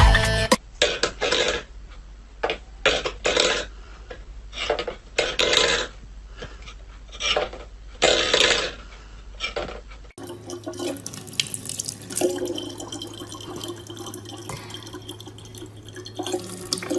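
Steel pet bowls clattering on a wooden floor in a string of short, irregular knocks. Then a kitchen tap runs steadily with a constant hum.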